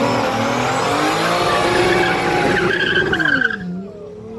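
Car engines revving, their pitch rising and falling, with a high squeal near three seconds in. The sound then drops away sharply as the pitch falls.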